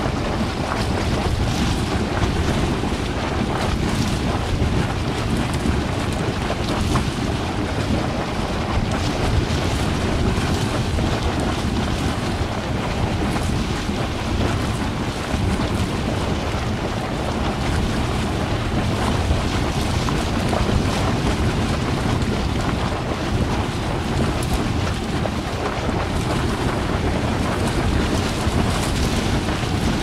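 Large hot spring gurgling constantly, a steady, even rush of bubbling water with no pauses.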